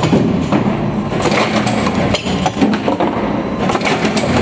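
DK390A shoe-box finger-hole riveting machine running just after start-up: its vibrating feeder plate and motor give a dense, steady rattle, broken by irregular clanks and knocks from the mechanism.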